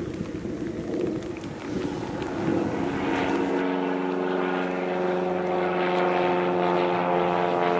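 Propeller engine of a Cub bush plane in flight, growing louder over the first few seconds and then droning at a steady pitch.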